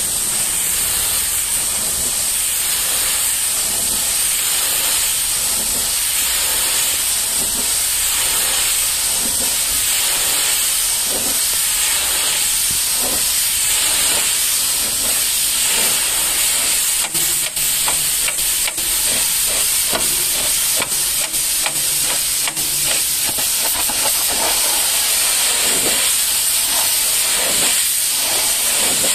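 High-pressure water jet from a pressure washer lance spraying against a steel tanker trailer: a loud, steady hiss. The spray breaks off briefly a few times about two thirds of the way through.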